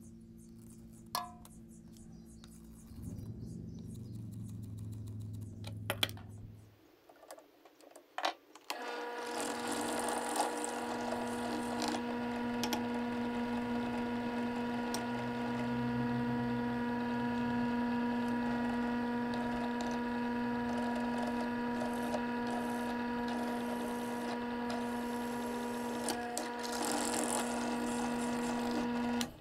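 Benchtop drill press motor starting about nine seconds in and running steadily with a constant hum while drilling holes in a small metal mounting bracket. Before it come a few faint clicks from handling small parts.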